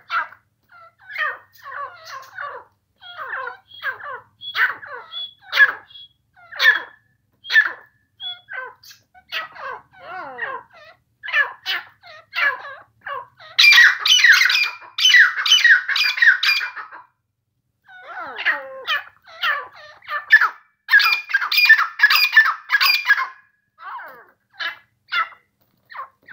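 Grey francolin calling: a long series of short, sweeping notes, rising into two louder, denser runs of calls in the second half.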